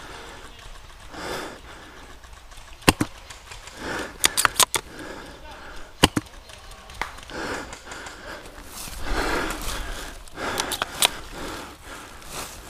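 Sharp clicks of airsoft guns firing: single shots about three and six seconds in, and quick strings of three or four shots around four and eleven seconds in, with muffled rustling between.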